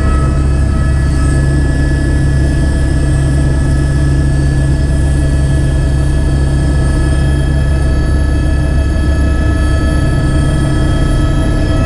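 Helicopter running, heard from inside its cabin: a loud, steady low rotor and engine hum with a high turbine whine held at a constant pitch.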